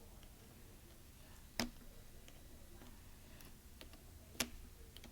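Faint handling of small parts inside an opened laptop: a few light ticks, with two sharper clicks about a second and a half in and again near the end.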